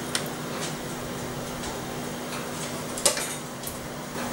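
Light clicks and taps of a cake server and a plate against a metal baking tray, with one sharper tap about three seconds in, over a steady low hum.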